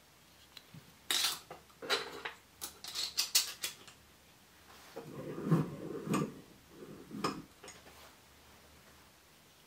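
Bench vise being handled: a run of sharp metallic clinks, then a cluster of duller clunks and rattles about five to seven seconds in as soft-jaw covers are fitted onto the vise jaws.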